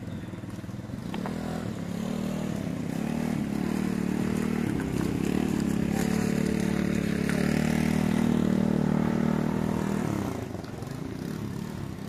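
A motor scooter's engine running nearby, growing louder over several seconds and then fading away after about ten seconds.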